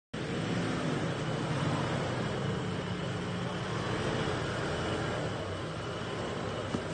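Holden RG Colorado ute's engine running steadily as it crawls up rock steps on a steep off-road track.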